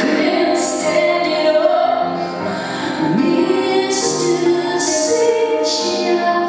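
A woman singing solo to her own piano accompaniment in a live performance: a sustained sung melody with a gliding phrase about halfway through, over held piano chords.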